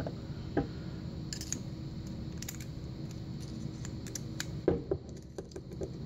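Scattered light metallic clicks and taps from handling an American Lock 5200 padlock and fitting a flathead screwdriver into the screw hole in the lock body, the loudest pair a little before the end.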